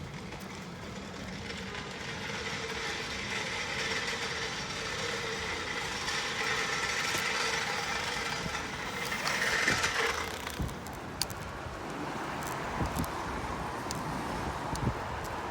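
A road vehicle passing, its noise building over several seconds and dropping away sharply about ten seconds in, followed by wind noise with a few light knocks.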